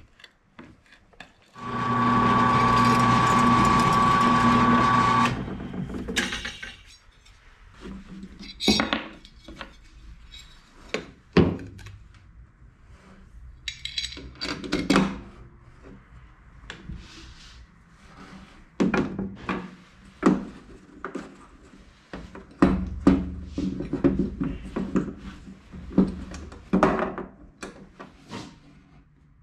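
A motor runs steadily for about three and a half seconds, then stops. After that comes hand work on aluminium parts: scattered clicks, knocks and light clatter as clamps and metal pieces are handled.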